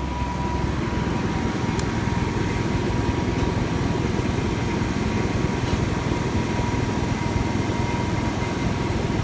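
1990 Chevrolet Suburban's engine idling steadily, with a faint steady high whine alongside.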